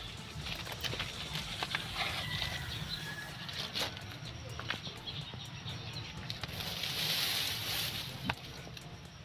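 Outdoor ambience under a handheld camera, with a steady low rumble, scattered light clicks and rustles, and a soft hissing swell about seven seconds in.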